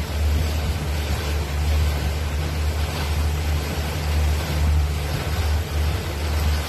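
Boat engine running steadily, a low hum, under a constant rushing noise of wind and water.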